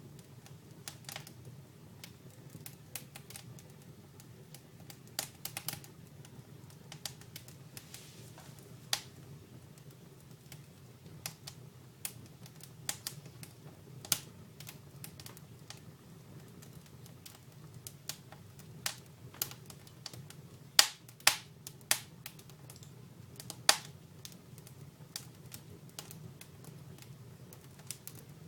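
Dry wood fire in a fireplace crackling: irregular sharp pops and snaps over a low steady hum, with the loudest pops bunched together in the last third.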